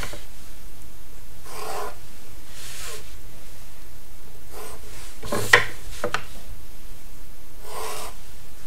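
A pencil drawing lines against a plastic set square on paper, with the set square being slid along a wooden straight edge: several short strokes, and a sharp tap about five and a half seconds in.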